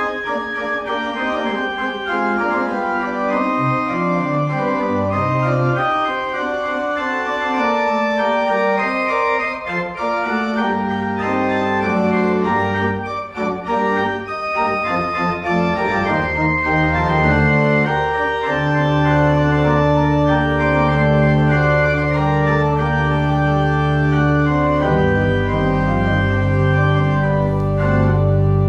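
Organ music: slow sustained chords with held notes, low bass notes coming in partway through and a deeper bass added near the end.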